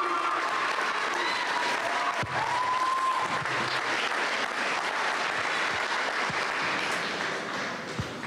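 A large crowd applauding, thinning out near the end.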